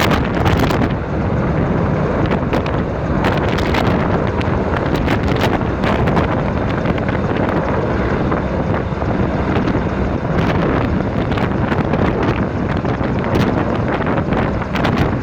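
Strong wind buffeting the microphone: a steady rushing with irregular gusty thumps.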